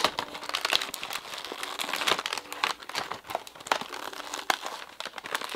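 Plastic toy packaging crinkling and crackling as it is handled and pulled apart, with a sharp snap at the start and dense rustling after.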